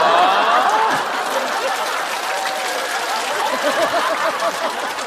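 Studio audience laughing and applauding, a mass of overlapping laughter and clapping that is loudest in the first second and then carries on steadily.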